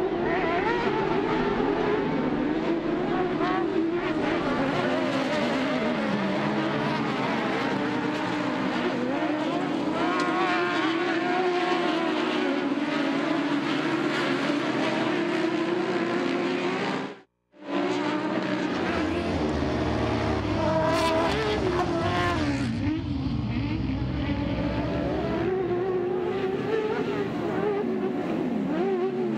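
Several racing UTVs' engines running hard, revving up and down as the pack races. The sound cuts out for about half a second around seventeen seconds in.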